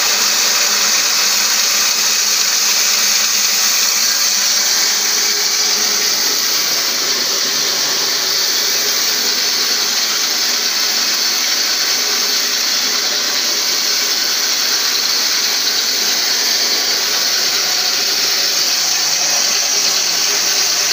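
Electric combination grain mill and maize/rice huller running steadily, a constant machine whir with a strong hiss.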